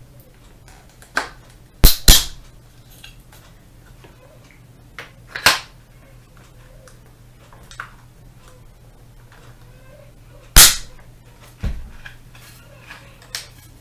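An AR-15-pattern 9mm carbine being put back together by hand: a handful of sharp metallic clicks and snaps as pins and parts seat home, with a quick double snap about two seconds in and single loud snaps about five and ten seconds in.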